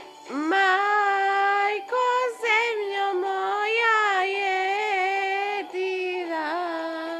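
A female solo voice singing long held notes with ornamented bends and turns, from a Balkan ethno-pop recording heard through laptop speakers with no bass. The voice comes in just after the start and breaks off briefly twice.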